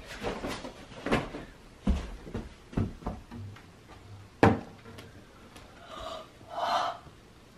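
Footsteps and knocks as a cupboard door is pulled open and handled, with a sharp knock about four and a half seconds in, followed by a short pitched sound near the end.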